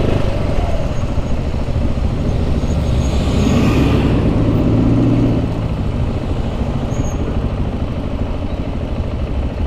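Low engine rumble of slow city traffic heard from a KTM 690 SMC R single-cylinder supermoto, with an engine swelling louder from about three to five seconds in.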